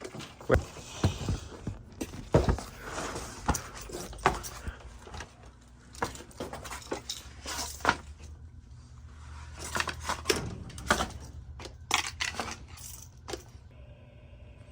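Irregular knocks, clicks, scrapes and clinks of a person moving about and handling things in a crawl space, over a faint low steady hum.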